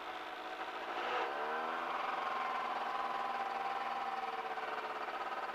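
Light aircraft engine idling at about 1500 RPM with the throttle pulled all the way back, heard through the cockpit intercom feed. Its pitch rises a little about a second in, then holds steady.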